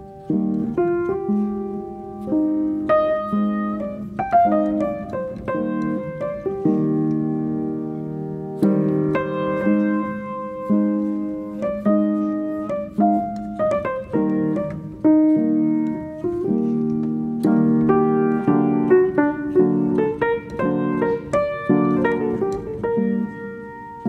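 Background piano music: a gentle run of struck notes and chords, each note sounding sharply and fading.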